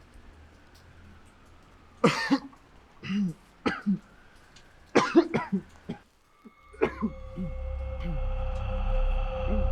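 A person coughing in several short bursts over about three and a half seconds. A low, droning music bed of held tones comes in near the end.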